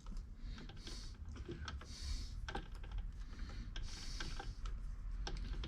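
Irregular light clicks and ticks from a milling machine's handwheel being cranked to feed down, over a low steady hum.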